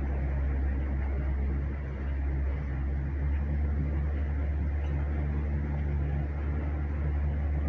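Tour boat's motor running steadily, a constant low drone.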